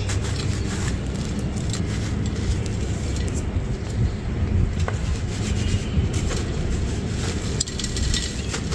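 Dry sand-cement block crushed and crumbled by hand into a clay pot: continuous gritty crunching and rubbing, with a few sharp cracks as pieces break off, over a low rumble.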